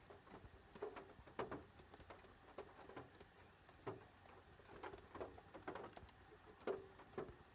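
Near silence inside a car's cabin, broken by faint, irregular taps of raindrops on the car.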